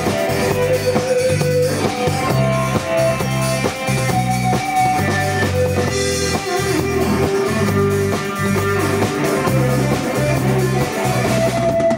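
Live rock band playing an instrumental break between sung verses: a guitar melody over bass and drums.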